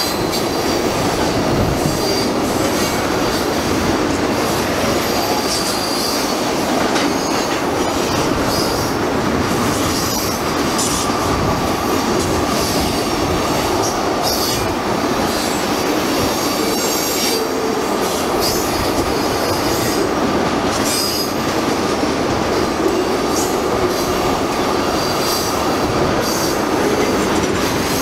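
Freight train of tank cars rolling past: a steady rumble of steel wheels on rail, with brief high wheel squeals and clicks from the passing wheels.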